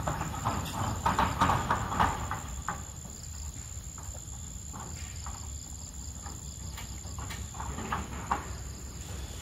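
Macaque biting into and chewing a ripe mango: a run of wet smacking clicks, thickest in the first two seconds, then sparser. A steady high whine sits behind them.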